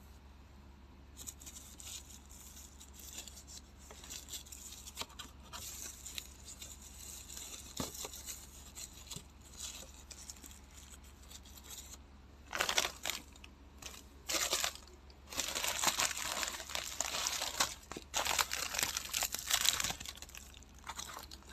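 Irregular crinkling and rustling, coming in bursts that grow louder and denser in the second half, over a steady low hum.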